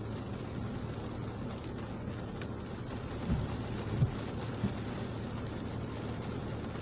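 Rain falling steadily on a car's windscreen and body, heard from inside the car over a faint low hum. Three short low thumps come between about three and four and a half seconds in as the windscreen wiper sweeps across the glass.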